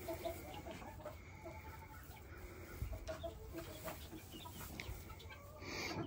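Chickens clucking quietly in short, scattered notes, with a brief louder noise near the end.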